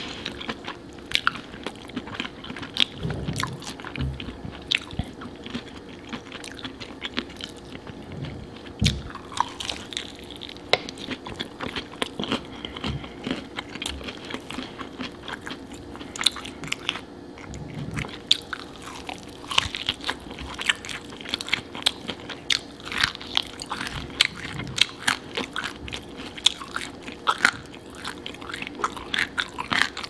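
Eating crispy, sauce-coated fried chicken: crunchy bites and wet chewing, with many sharp crackles as the breaded pieces are pulled apart by hand.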